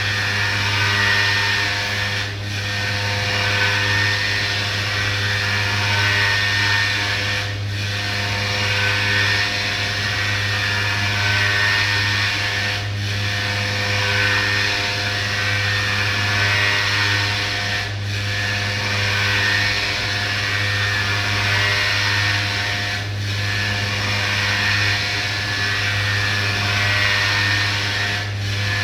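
CNC orthopedic milling machine running, its spindle cutting a prosthetic part: a steady drill-like whine over a low hum, dipping briefly about every five seconds.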